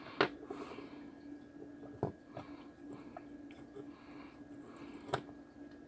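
Faint clicks and taps of a small circuit board being handled and slid on a wooden workbench, the sharpest about a quarter second, two seconds and five seconds in, over a steady faint hum.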